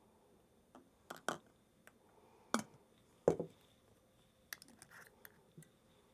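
Handling of glassware and a plastic funnel: a few separate light knocks of glass and plastic, then a run of small clicks as a cap is screwed onto an amber glass bottle.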